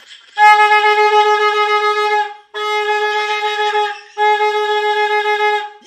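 Plastic vuvuzela-type horn blown in three loud, long blasts on one steady pitch, with short breaks between them.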